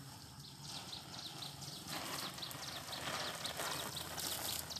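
Water splashing from hand-watering onto an asparagus bed, starting about two seconds in and getting louder, over a rapid series of short, high chirps, about four a second.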